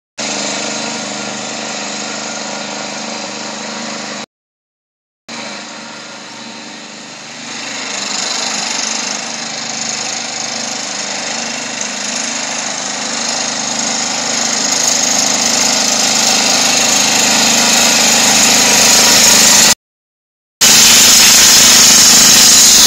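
AL-KO 620 ride-on lawn mower's petrol engine running steadily, getting louder as the mower drives closer. The sound cuts out completely twice for about a second.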